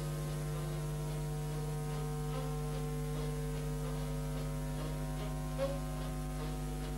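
Steady electrical hum: a low drone with several steady overtones that does not change, with only faint ticks over it.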